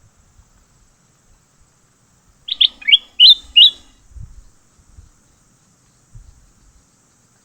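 A bird close by giving a quick run of about six loud chirps lasting about a second, a few seconds in, with faint low knocks around it.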